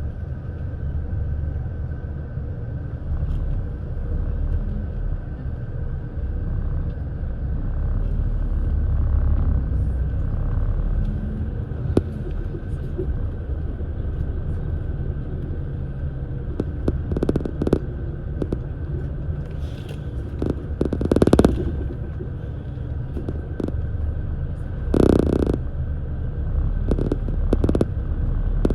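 Steady low rumble of a moving road vehicle, with a few brief, louder knocks and rustles over it, the two loudest about two-thirds of the way through and near the end.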